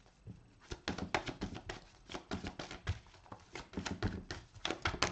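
A deck of oracle cards being shuffled by hand: a run of quick, irregular soft clicks and flicks of card stock.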